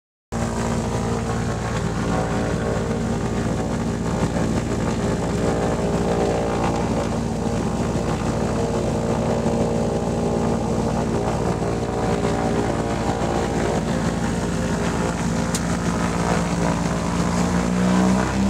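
Twin piston engines of a small propeller aircraft, heard from inside the cockpit, running steadily on the ground. Near the end their pitch begins to rise as the throttles are pushed forward.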